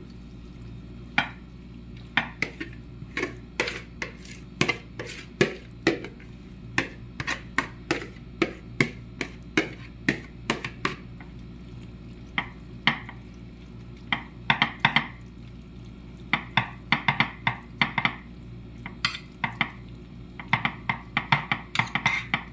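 Metal spoon clinking against a glass baking dish as cooked spaghetti is spread and pressed into it: an irregular run of sharp taps, a few each second.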